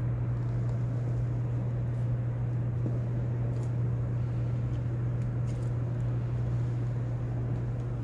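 Steady low hum under a rumbling room ambience inside a large cathedral, with a few faint clicks.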